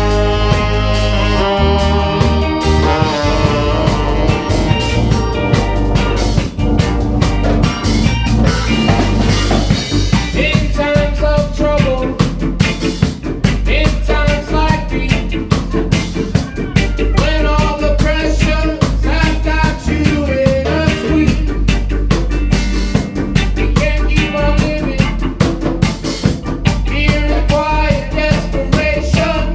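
Reggae band playing: a steady bass line and drum-kit beat with ska-like offbeats, and melodic lines over the top.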